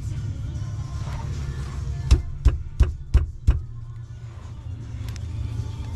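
Five sharp knocks in quick succession, about three a second, over background music with a steady bass.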